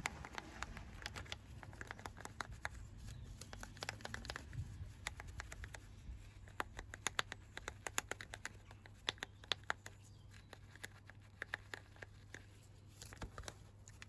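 Snow foam fizzing and crackling on a car wheel and tyre as its bubbles burst: faint, irregular tiny pops and clicks over a low steady hum.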